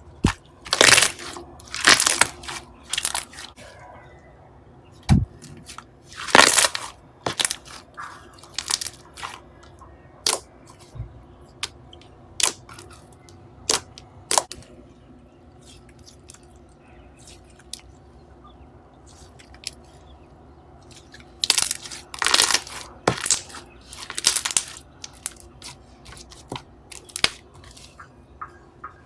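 Soft, watery wood-glue slime being pressed and squeezed by hand, giving irregular wet crackles, pops and squelches. There are bunches of louder pops in the first few seconds, another around six seconds in, and a dense run of them late on.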